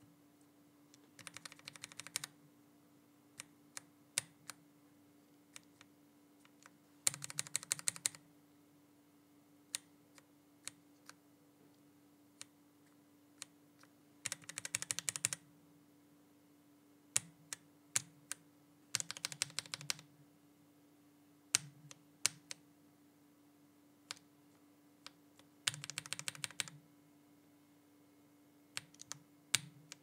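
Lubed linear mechanical keyboard switches in a VX5 Pro keyboard with a silicone dampener, pressed one at a time and in short bursts of fast typing about every six seconds. The switch under test changes partway, from Outemu Silent Yellow to JIXIAN Holy Dog. A faint steady hum sits underneath.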